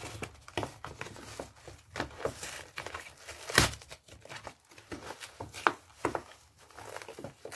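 A parcel envelope being torn open and handled: a run of crinkles, rustles and tearing, with one loud sharp rip about three and a half seconds in.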